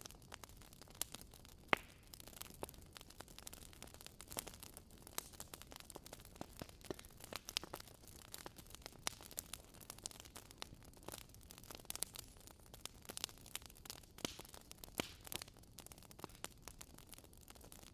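Wood fire crackling in a fireplace: irregular pops and snaps of varying loudness over a soft steady hiss.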